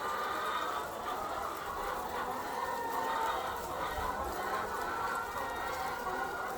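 A large flock of commercial laying hens clucking and calling together in a steady, overlapping chatter.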